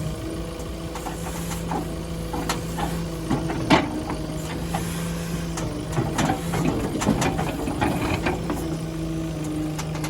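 Tata Hitachi Shinrai backhoe loader's diesel engine running steadily, with irregular metallic clanks and rattles from the machine over it, the loudest about four seconds in.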